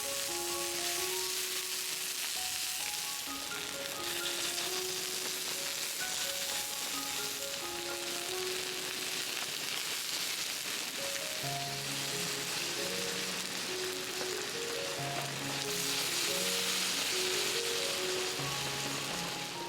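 Gentle background music over a steady hiss; a low bass line comes in about halfway through.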